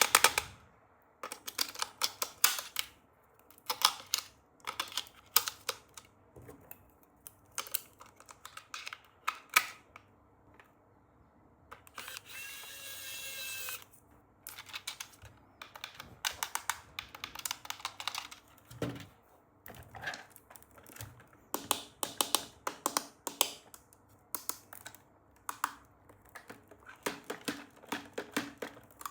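Hands handling toy packaging: irregular clicks, taps and crinkling of plastic and cardboard. About twelve seconds in there is a two-second screeching sound.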